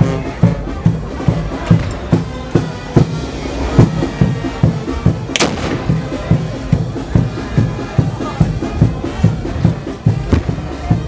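Street band music with a steady bass-drum beat, and a single sharp bang, like a shot or firecracker, about five seconds in.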